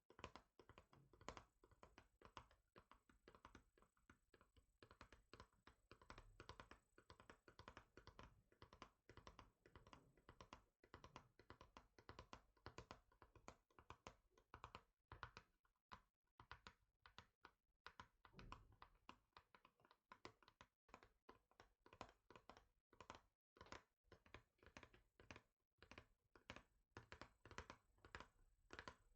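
Fingers tapping rapidly and lightly on a hard surface, many quick taps a second, with a few short breaks in the middle.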